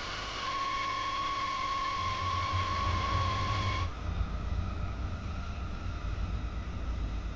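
Steady high whine of a jet turbine over a low rumble. It cuts off abruptly about four seconds in and gives way to a heavier low rumble with wind buffeting the microphone.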